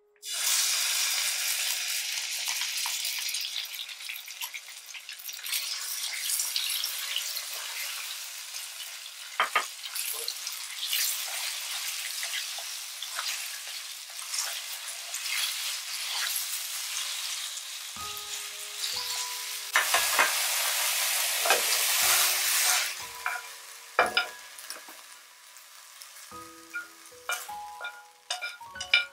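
Shredded pork frying in hot oil in a stone-coated nonstick pan: a loud sizzle starts suddenly as the meat goes in and settles into steady frying, with chopsticks stirring and clicking against the pan. The sizzle flares up again about two-thirds of the way through, then dies down near the end, leaving sharp clicks.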